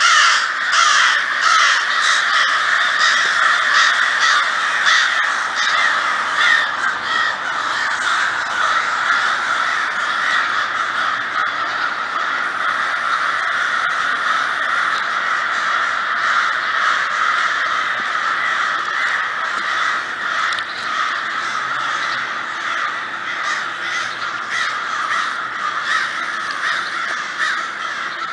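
A large flock of crows cawing continuously overhead, many calls overlapping into a dense din that grows slightly fainter over the stretch.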